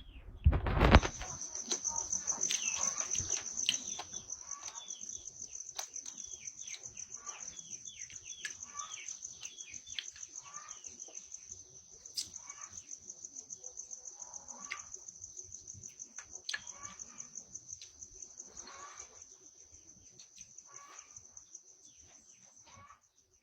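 Birds chirping over and over, short falling chirps about once or twice a second, over a steady high-pitched whine. There are a couple of loud knocks in the first second.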